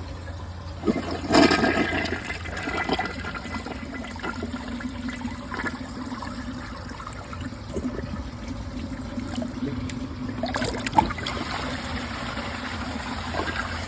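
Mansfield Summit dual-flush toilet flushing, with water rushing over a steady low hum and a sharp click near the end. The flush fails to clear the test load from the bowl.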